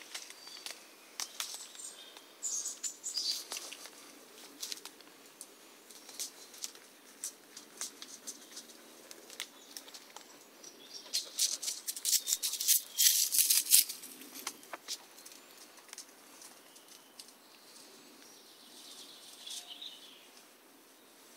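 Crackling and snapping of twigs and dry leaf litter on the woodland floor, scattered throughout, with a dense run of sharp crackles about twelve to fourteen seconds in. A few bird chirps sound near the start and near the end.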